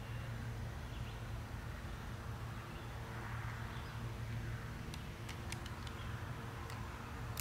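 Rural outdoor background: a steady low hum with a soft hiss that swells and fades, and a few faint sharp ticks about five to six seconds in.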